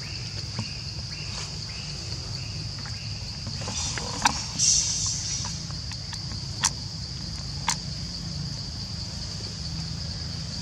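Steady, high-pitched drone of insects, with a few sharp clicks about four, six and a half and seven and a half seconds in.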